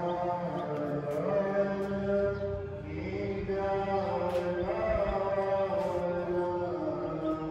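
Devotional mantra chanting: voices hold long sung notes that glide slowly from pitch to pitch in a steady, continuous chant.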